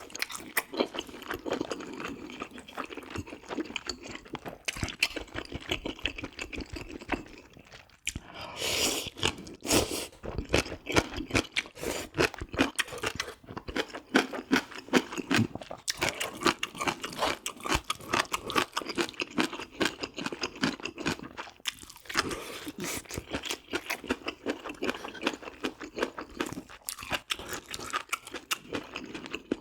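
Close-miked eating of spicy braised pork ribs: chewing and lip-smacking in a rapid, uneven run of clicks and smacks, with a brief louder rush about nine seconds in.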